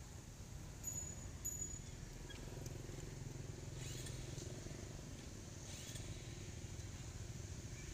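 Low, steady rumble like a distant engine running, with two short, faint high chirps about a second in.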